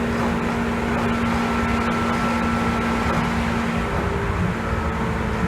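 Seibu 2000 series electric train car running, a steady rumble with a steady low hum and a fainter high whine that fades in and out. It is the car's abnormal noise, which the uploader suspects is resonance.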